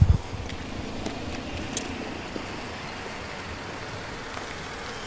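Steady outdoor background noise with a faint, continuous distant engine hum.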